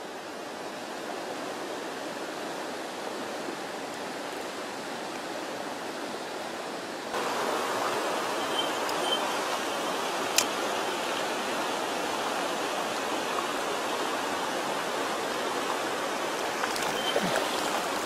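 Mountain stream rushing over rocks and small cascades, a steady water noise that gets louder about seven seconds in. A single sharp click comes near the middle.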